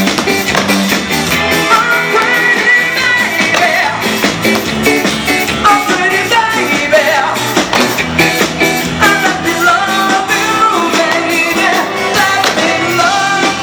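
Live band playing a pop-rock song, with a steady beat and a melody line that slides up and down over the accompaniment.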